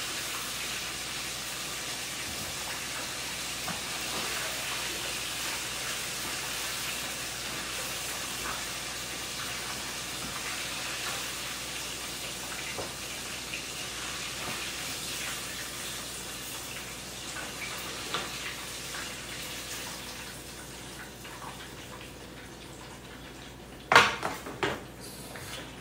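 Chicken wings deep-frying in a pot of hot oil: a steady sizzle with scattered light crackles, growing quieter over the last few seconds. A sharp clatter comes near the end.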